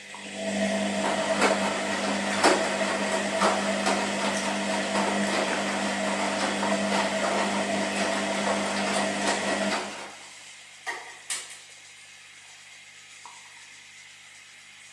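Washing machine running its wash cycle: the motor turns the drum with a steady hum and scattered knocks from the tumbling load, then stops about ten seconds in. Two sharp clicks follow, then only a low background hum.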